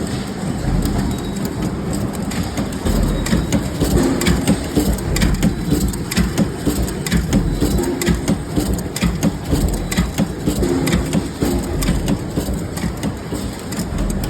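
Cold forging machine running, a steady mechanical clatter of many rapid metallic knocks and clicks over a low rumble.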